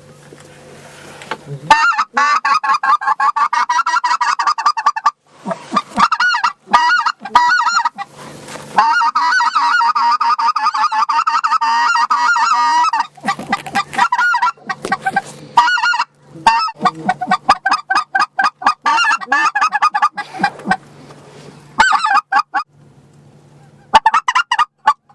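A hand-blown waterfowl call, very close and loud, sounding long strings of rapid honking notes, broken by short pauses between sequences.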